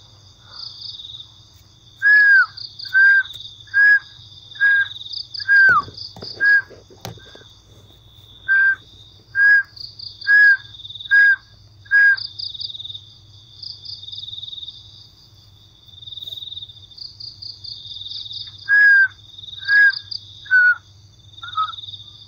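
An animal repeating a short, clear call, some calls dropping in pitch at the end, about once a second in runs of four or five with pauses between. Crickets trill steadily throughout.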